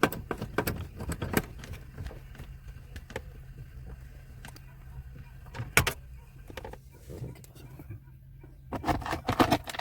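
Scattered clicks, taps and light metallic clinks of bolts and plastic dash trim being handled and fitted, with a sharper knock about six seconds in and a quick run of clicks near the end. A steady low hum runs underneath.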